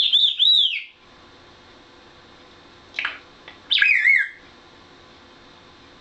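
African grey parrot whistling: a warbling whistle near the start, then a short chirp about three seconds in and another wavering whistle about four seconds in.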